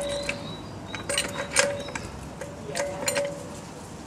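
Sharp metallic clicks and clinks from wheel-changing gear, a car jack and its lift-point adapter being handled and set in place, coming in four short clusters, some leaving a brief ring.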